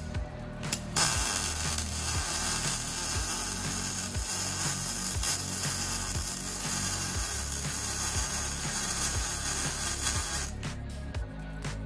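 Prime Weld MIG180 MIG welder arc crackling and hissing steadily as a bead is run on the steel mower deck. It strikes about a second in and cuts off suddenly near the end. Background music plays underneath.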